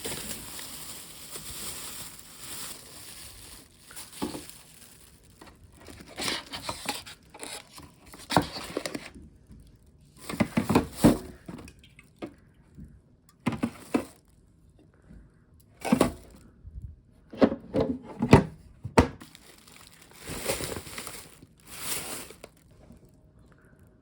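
Irregular rustling and crinkling handling noises, with a few sharp knocks.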